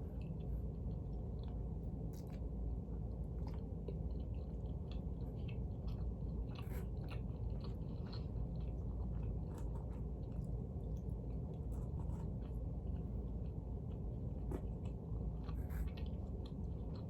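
A person chewing and biting stuffed-crust pizza, with scattered small crunches and clicks over a steady low hum.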